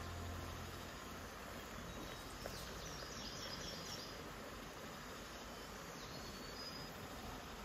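Hot water poured in a steady thin stream from an aluminium pot into a cloth coffee filter full of grounds, a soft continuous trickle. A small bird chirps a few times in quick succession about three seconds in, and again briefly near six seconds.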